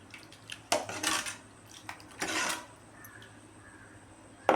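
A spoon stirring rasam in a pan, scraping against the pan a few times, then a sharp clink near the end.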